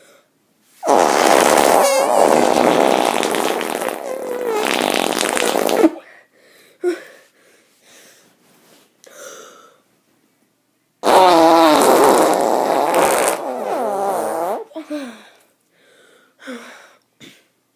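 Leg fart: a kid blowing hard with his mouth pressed against the fat of his leg, making a fart-like raspberry. Two long blasts, the first about five seconds and the second about four, wavering in pitch, with faint short sounds between.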